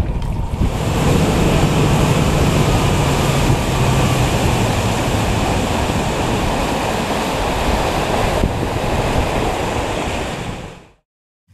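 Fishing boat running at speed across a lake: a steady rush of water along the hull and wind buffeting the microphone over a low engine hum. It cuts off about a second before the end.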